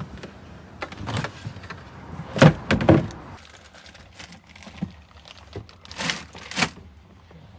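Knocks and thuds of shopping being set down into a van's rear cargo area, the loudest pair of thumps about two and a half seconds in and another pair near the end.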